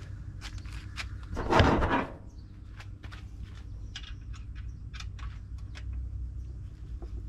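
Light clicks and taps from handling the plastic umbrella base, with one louder scraping, rustling clunk about a second and a half in that lasts about half a second.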